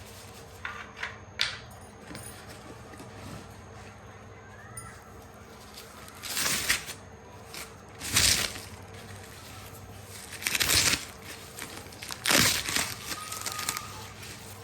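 Parcel packaging crinkling and rustling as it is handled, in a few short bursts with pauses between, after a couple of sharp clicks about a second in.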